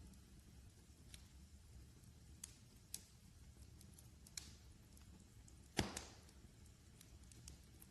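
Wood fire crackling: a low steady rumble broken by scattered sharp pops, one much louder than the rest about three-quarters of the way through.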